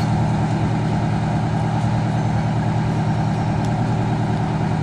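Fire truck's engine idling with a steady low hum.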